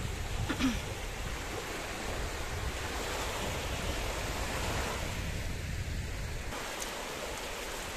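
Small waves washing and breaking over a shallow sandy shore in a steady wash, with a low rumble under it that stops about six and a half seconds in.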